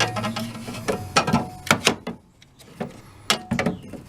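Replacement DLP projection lamp in its cage being pushed and worked into its keyed housing in the television: a string of sharp knocks and clicks, about seven, with a short pause a little after two seconds in.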